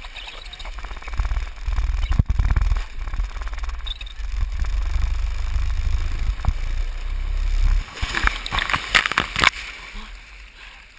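A person sliding fast down a wet plastic-sheet water slide, a low rumbling rush with a bump about two seconds in, then a splash into the pool at the bottom about eight seconds in.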